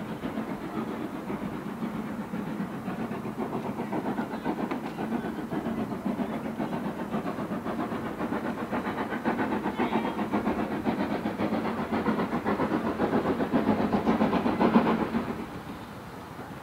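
Steam locomotive working, its exhaust beating rapidly and steadily and growing louder, then cutting off suddenly near the end.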